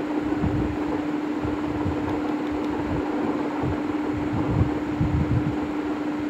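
A steady machine hum: one constant low droning tone over a hiss, with a wavering low rumble underneath.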